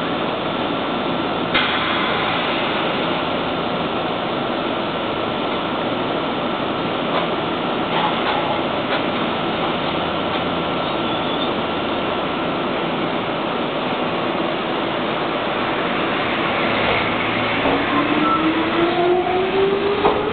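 Kishigawa Line 'Ichigo Densha' electric train standing at the platform with its equipment running, its doors sliding shut. About three seconds before the end it pulls away, and its traction motors give a rising whine as it picks up speed.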